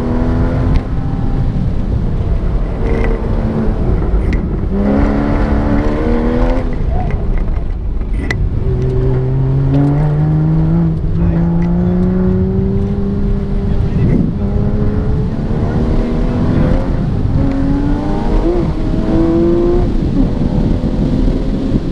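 Porsche 911 flat-six engine heard from inside the cabin during an autocross run, its note climbing under acceleration and dropping back again and again as the car works between corners.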